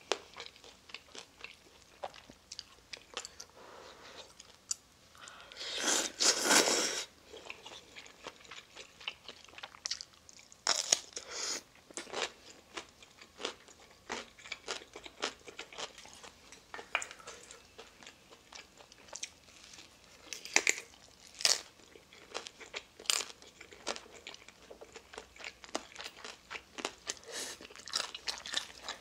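Eating sounds: noodles slurped loudly about six seconds in and again briefly around eleven seconds, between stretches of crunchy chewing and small wet mouth clicks.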